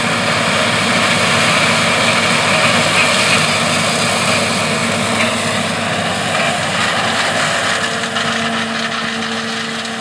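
John Deere 4420 combine running steadily while harvesting corn: a dense, loud mechanical drone of engine and harvesting machinery that eases off slightly near the end.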